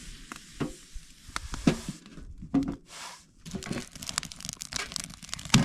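Irregular rustling and crinkling with many scattered sharp clicks and a few louder knocks.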